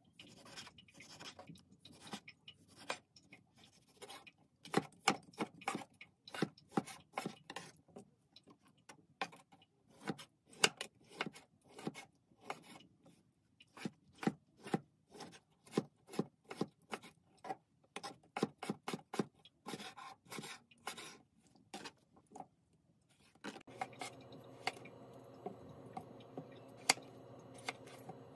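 Chef's knife slicing and dicing tomato, then potatoes, on a cutting board: a quick, irregular run of sharp knocks of the blade hitting the board, up to about three a second. Near the end a steady hum comes in under the chopping.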